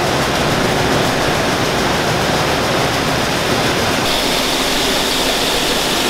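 Shelled corn pouring out of a green gravity wagon into the hopper of a red grain auger: a loud, steady rushing hiss of falling kernels. The hiss turns brighter about four seconds in.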